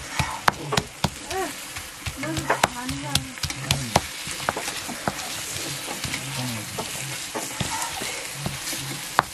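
Pork sizzling as it fries in a pot, with a ladle stirring it and clicking irregularly against the pot.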